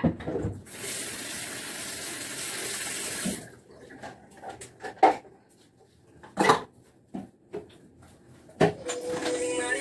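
Bathroom sink tap running for about three seconds, then shut off, followed by a few sharp knocks and clatters as things on the sink counter are handled and wiped.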